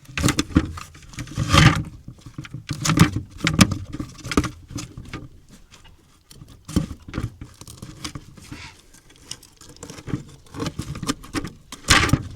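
Irregular slaps and knocks as a freshly caught mackerel is handled and killed with a knife.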